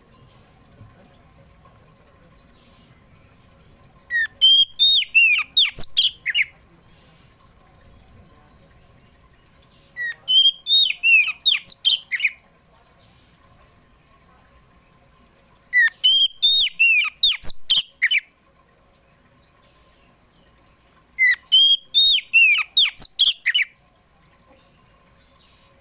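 Oriental magpie-robin (kacer poci) singing: four loud phrases of rapid, sweeping whistled notes, each about two seconds long and much alike, coming about every six seconds.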